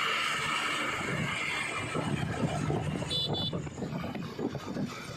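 Vehicle engine running with an uneven low rumble, and a short double beep about three seconds in.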